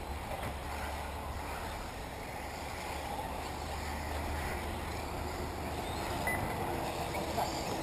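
1/8-scale electric RC off-road buggies racing round the track, a steady mechanical whir of motors and tyres, under a low wind rumble on the microphone.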